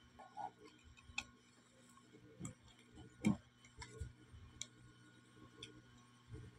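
Metal spoon tapping and clicking against a plastic jar lid: a handful of scattered light clicks, the loudest about three seconds in.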